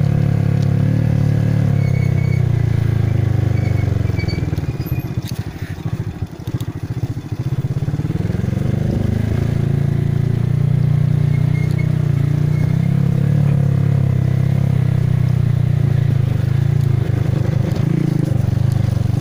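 Motorcycle engine running steadily. About four seconds in it eases off, dropping in pitch and loudness, then picks up again from about eight seconds.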